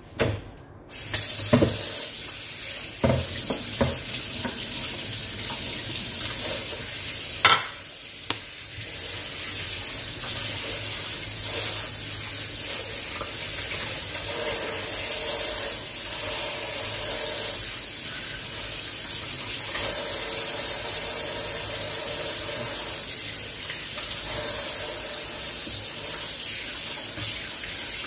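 Kitchen tap running steadily into a sink as skinned red snapper fillets are rinsed by hand in a colander. The water comes on about a second in, and a few sharp knocks sound in the first several seconds.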